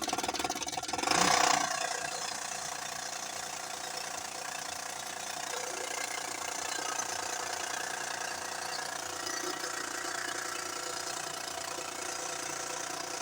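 Honda Odyssey 3.5-litre V6 idling with its serpentine belt removed, a louder burst about a second in and then a steady run with a knocking rattle. The mechanic traces the noise and vibration to the timing belt tensioner, which he plans to replace.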